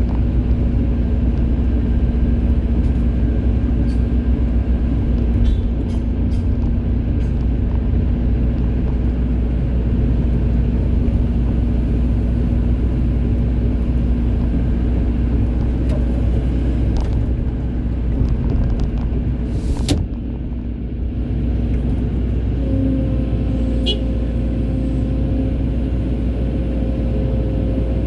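Excavator's diesel engine running steadily with a low, constant hum and a few sharp clicks and knocks. A brief dip comes about two-thirds of the way through, and a higher steady whine joins soon after.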